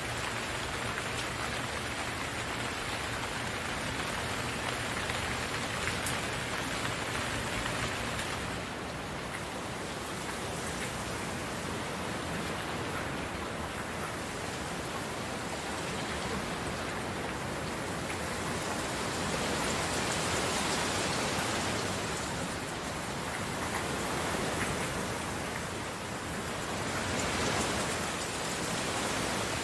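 Steady heavy rain: a dense, even hiss of rainfall, swelling slightly louder a couple of times.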